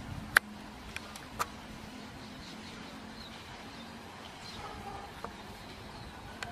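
Steady low background noise with a faint hum, broken by a few sharp clicks. The loudest click comes about half a second in and smaller ones follow, with faint high chirps in between.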